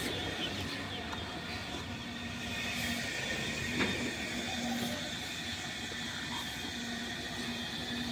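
Steady traffic and engine noise at a bus stand, with a low engine hum that comes and goes, and a single knock about four seconds in.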